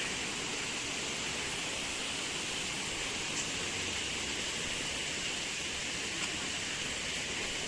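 Distant waterfall rushing, a steady even hiss, with a steady high-pitched drone laid over it.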